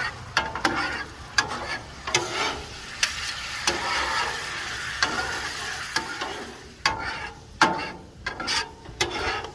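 Bourbon sizzling and bubbling in a honey-onion mixture on a hot griddle, with a spatula scraping and clicking on the steel as it is stirred constantly. The sizzle is loudest in the middle, and the scrapes come irregularly.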